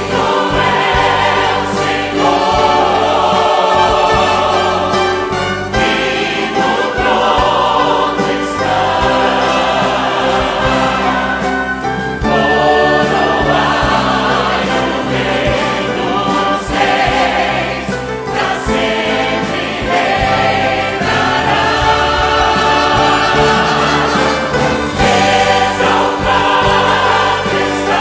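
Choir and soloists singing a Portuguese worship song with live orchestral accompaniment, steady and loud throughout.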